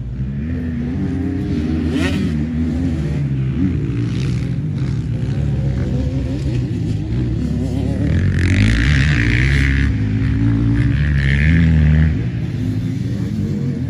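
Small motocross dirt bike engine revving up and down as it is ridden around the track, its pitch rising and falling with the throttle. It gets louder and harsher from about the middle of the stretch, then drops back a little near the end.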